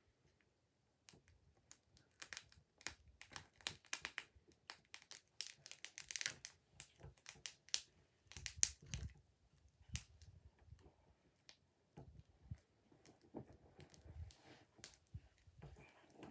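Burning pile of scrap wood crackling: a run of irregular sharp snaps that starts about a second in and is busiest in the first half.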